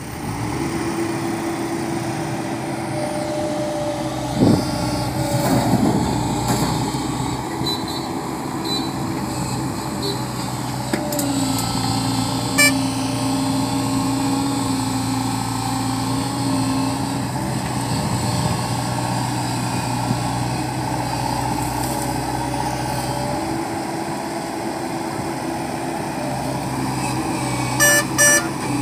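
JCB tracked excavator's diesel engine running steadily as it digs and loads, its note dropping for a few seconds partway through and then coming back up. A few sharp knocks stand out over the engine.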